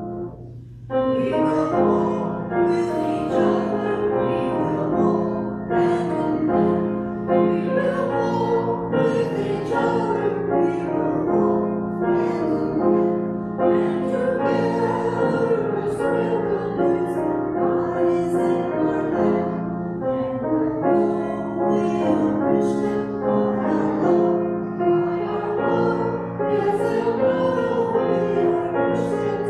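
Small mixed choir singing with piano accompaniment, with a brief pause between phrases about a second in.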